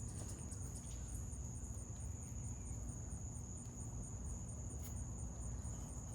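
Insects chirring steadily: one continuous high trill, with a second, higher chirp pulsing about four times a second, over a low rumble.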